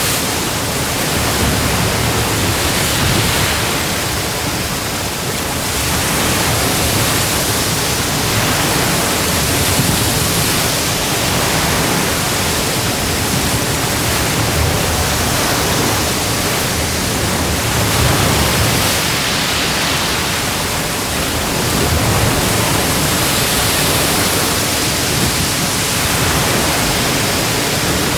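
Ocean waves breaking and washing on a shore, a dense steady rush of surf that swells and eases every few seconds.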